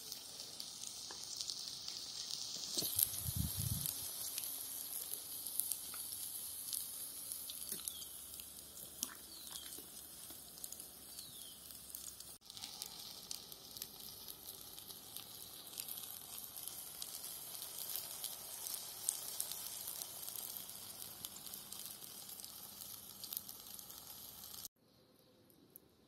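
Plantain pieces frying in hot oil in a clay cazuela over a wood fire: a steady sizzle full of small crackles and pops. A dull bump about three seconds in, and the sizzle cuts off suddenly shortly before the end.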